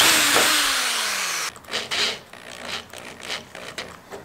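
Cordless drill running a self-tapping screw into the car's sheet metal; its motor whine falls in pitch and stops about a second and a half in. Quieter clicks and handling sounds follow.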